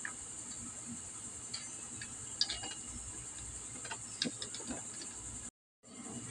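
Faint, scattered light metallic clicks and taps of a GY6 scooter engine's rocker arm assembly being slid onto the cylinder head studs by hand, over a steady high hiss. The sound cuts out briefly near the end.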